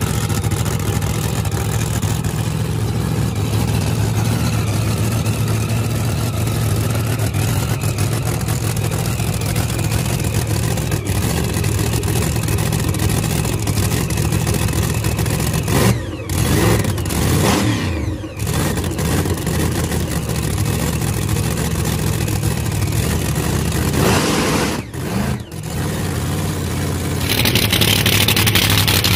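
Big-block V8 with a giant Whipple supercharger idling with a lumpy, uneven beat, revved a few times about halfway through and again a little later. Near the end it switches suddenly to a louder, harsher run with a strong hiss over the engine.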